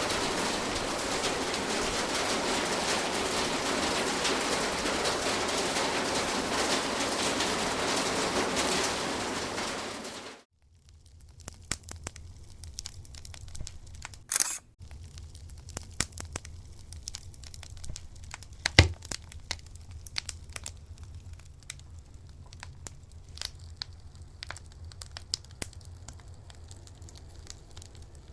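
Steady hiss of heavy rain that cuts off abruptly about ten seconds in. It gives way to a much quieter background of low hum with scattered crackles and clicks, one short loud noise and one sharp click.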